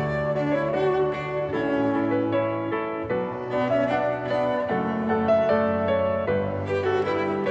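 Slow instrumental music of bowed strings and piano, long held notes with the chords changing every second or two.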